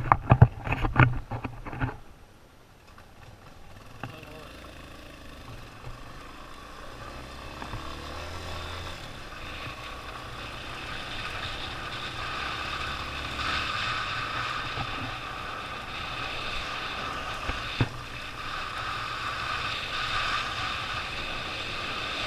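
A motorcycle engine running steadily and slowly getting louder, after a couple of seconds of sharp knocks and handling noise at the start.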